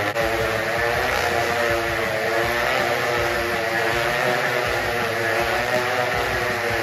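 Motorcycles riding inside a steel-mesh globe of death, their engines running at high revs. The pitch rises and falls in repeated waves as they loop around the cage.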